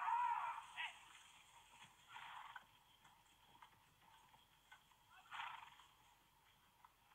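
A horse neighing, its call wavering up and down in pitch and dying away within the first second. A few faint short sounds follow.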